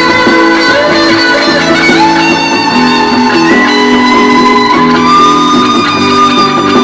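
Fender American Standard Stratocaster HSS electric guitar playing held notes and chords, with a few bent notes sliding in pitch.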